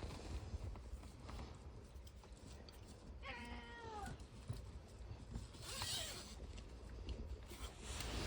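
An old cat meowing: one drawn-out meow about three seconds in that falls in pitch, then a fainter, breathier call about six seconds in.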